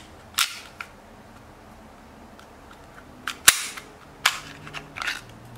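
Sharp plastic-and-metal clicks and clacks of an Army R18 gas blowback airsoft pistol's slide being worked and taken off the frame during field stripping: one click shortly after the start, then a run of clacks a few seconds in, the loudest about halfway through.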